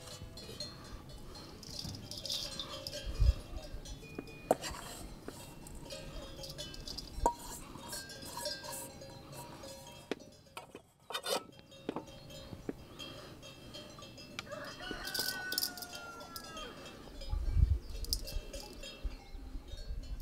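A rooster crows once about fifteen seconds in, over scattered clinks and knocks of outdoor cooking work and bell-like clinks. A low rumble comes in near the end.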